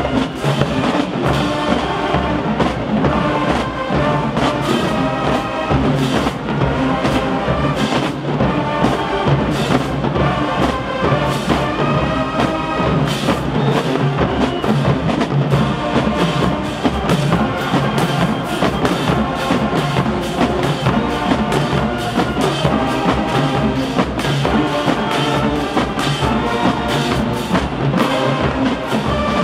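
HBCU-style marching band playing full out: brass chords over a drumline's steady, dense drum beat.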